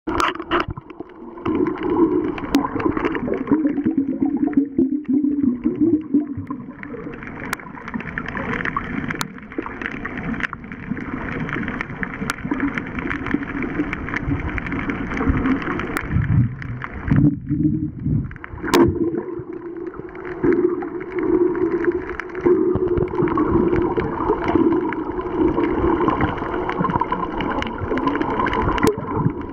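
Muffled underwater sound picked up by a camera in a waterproof housing: water sloshing and rumbling against it as it moves, with a sharp click now and then.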